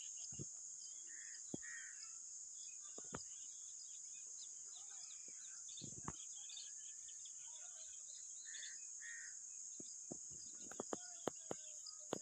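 Steady high-pitched insect chorus with scattered soft clicks and a few short bird calls, coming in pairs twice.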